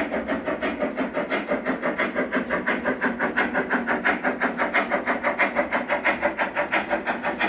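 LGB G-scale model steam locomotive's sound unit chuffing steadily, about five even beats a second, as the locomotive runs slowly.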